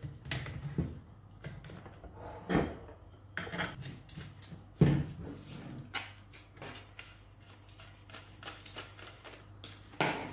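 Plastic parts of an electric long-reach hedge trimmer being handled and fitted together on a tabletop: a loop handle clamped onto the aluminium shaft against the motor housing. Scattered clicks and knocks, the loudest about five seconds in.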